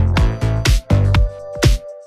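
Electronic dance music with a steady beat of about two drum hits a second over held synth notes.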